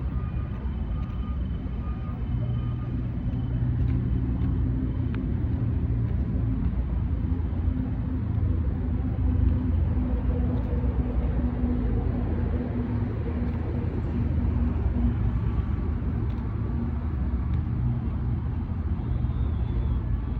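Road traffic: a steady low rumble of vehicle engines close by, getting a little louder about four seconds in.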